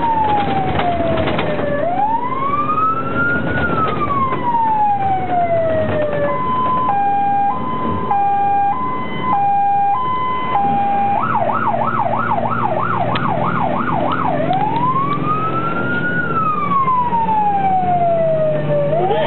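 Mercedes-Benz Atego fire engine's siren on an emergency run, heard from inside the cab: a slow rising-and-falling wail that switches about six seconds in to a two-tone hi-lo, then about eleven seconds in to a fast yelp of roughly three warbles a second, and back to the wail near fourteen seconds. The truck's engine and road noise rumble underneath.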